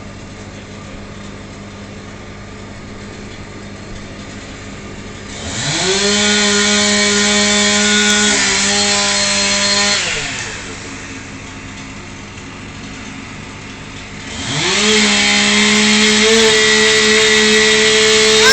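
Two-stroke chainsaw idling, then throttled up to high revs about five seconds in for roughly four seconds, dropping back to idle, and revved up again a few seconds before the end.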